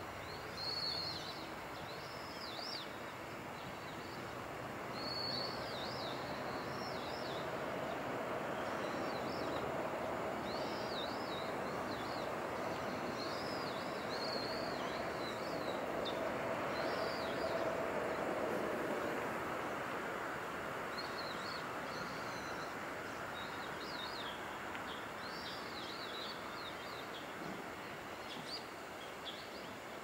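Small birds calling off and on with short, high, sweeping chirps, over a steady background hiss.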